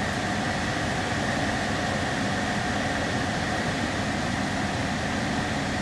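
Insignia portable air conditioner running in fan-only mode: a steady rush of air with a faint high whine. Its cooling has not yet started, so the air it blows is not cold.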